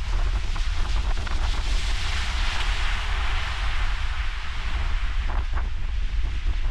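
Ocean surf breaking and washing in, with wind buffeting the microphone in a steady low rumble. A wave's wash swells about two seconds in and then eases off.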